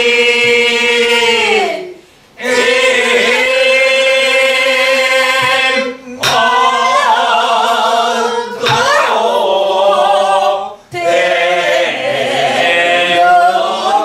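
A woman singing a Namdo folk song of southwestern Korea in long held phrases, some notes wavering, with short breaths between phrases and a few light strokes of a stick on a buk barrel drum keeping time.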